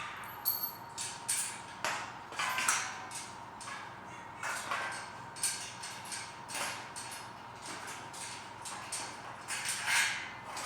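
Irregular clicks, knocks and scrapes of hand tools and day-bed frame parts being handled during disassembly, roughly one or two a second, with a louder clatter near the end.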